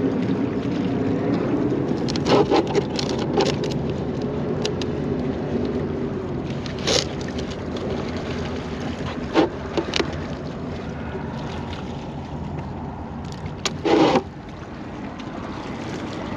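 Steady wind and water noise with a low hum. Over it come several short clicks and knocks as live crab bait and a plastic crate are handled; the loudest knock comes about 14 seconds in, after which the hum falls away.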